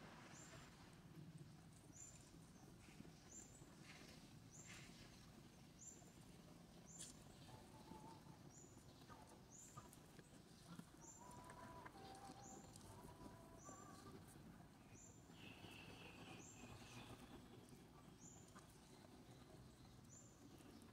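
Faint outdoor ambience: a short, high chirp repeats evenly about once a second, with a few faint, thin calls in the middle stretch.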